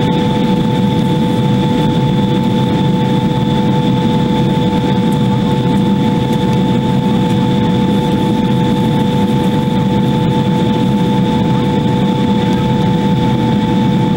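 Jet airliner cabin noise in cruise heard from a window seat: a steady low rumble and rush of engines and airflow, with a few constant high-pitched whining tones over it.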